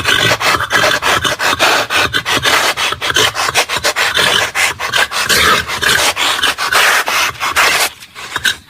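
Loud, rapid rasping scrapes, several strokes a second, thinning and quieter near the end.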